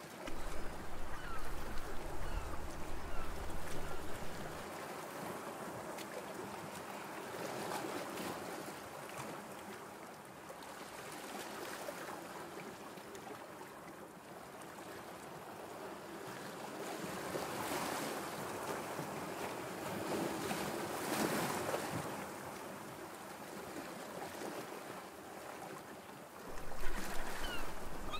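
Water washing and lapping in a harbour, as an even wash that swells now and then. Wind rumbles on the microphone for the first few seconds and again near the end.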